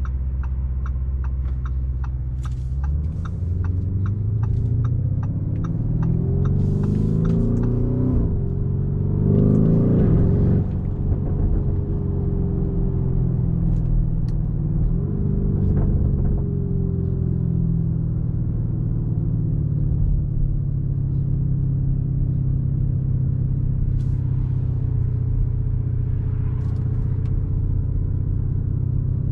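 In-cabin sound of a 2019 Lamborghini Urus's twin-turbo V8 pulling away from low speed, with the turn signal ticking about twice a second at first. The engine note then climbs through the gears with three upshifts before settling into a steady cruise.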